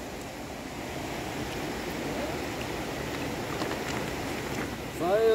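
Steady rushing of a fast, swollen muddy river running high. Near the end a person's voice starts and holds a long sung note.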